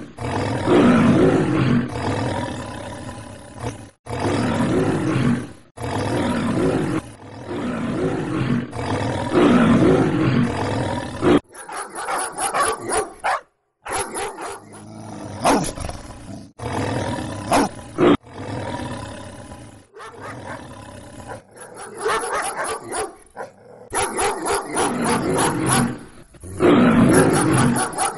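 Lion-like roaring and growling in repeated bouts of a second or two, several of them cut off abruptly, with a choppier, more broken stretch in the middle.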